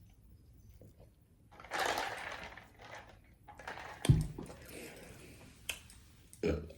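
Close-up eating and handling noises: about two seconds of crunching and rustling, then a sharp thump about four seconds in, followed by a few light clicks and a short burst near the end.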